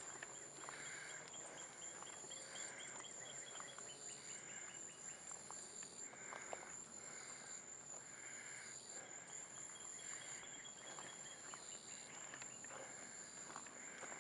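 Insect chorus: a steady high-pitched trill, with other insects chirping in regular pulses about every second and a half.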